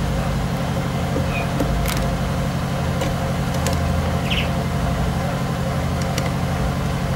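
A steady low mechanical drone, with a few faint clicks and taps as a screwdriver works the screws of a speaker grille and the grille is lifted off.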